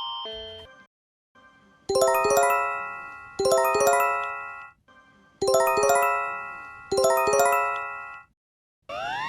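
Electronic alert attention chime: four bright, bell-like chimes in two pairs, each a quick run of several ringing notes that fades out.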